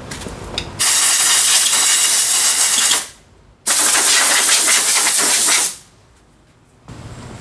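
Compressed-air blow gun blasting air over a removed scooter wheel and tyre to blow it clean: two loud hissing blasts of about two seconds each, with a short break between.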